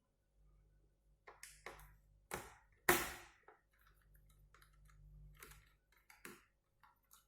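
Clicks, taps and light knocks of parts being handled on an opened laptop, starting about a second in, the loudest a sharp knock with a short ring about three seconds in.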